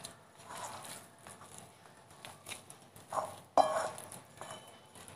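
A hand mixing and kneading crumbly doughnut dough in a glass bowl: irregular soft scrapes and light taps against the glass. The loudest is a sharp knock with a brief ring about three and a half seconds in, just after a smaller one.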